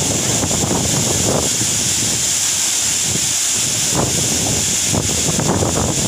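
Waterfall plunging into a rock pool: a steady, loud rush of falling water and splashing.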